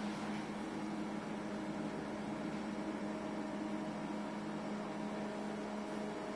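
Steady hum with a constant low tone and hiss underneath, the low tone dropping out shortly before the end.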